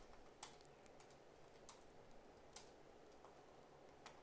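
Faint, scattered keystrokes on a computer keyboard as a word is typed: a handful of separate clicks over near silence.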